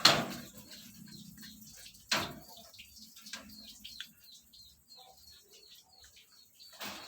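Civet eating coffee cherries: a run of small wet clicks and smacks from chewing, with sharper knocks right at the start, about two seconds in, and again near the end.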